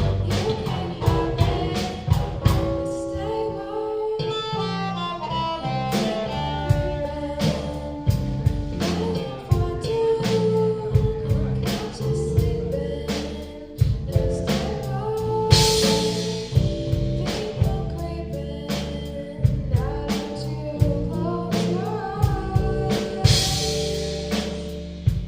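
Live rock band playing a song, with a singer over drum kit and guitar and a steady beat throughout. Cymbal crashes ring out about two-thirds of the way through and again near the end.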